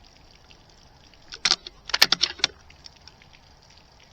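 A handful of sharp mechanical clicks in two quick clusters, about a second and a half and two seconds in, as the air rifle is handled and readied for a long shot.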